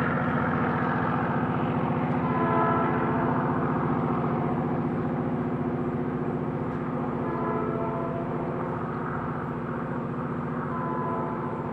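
Diesel locomotive running steadily and slowly fading as the train moves away, its multi-tone horn sounding three blasts about four seconds apart.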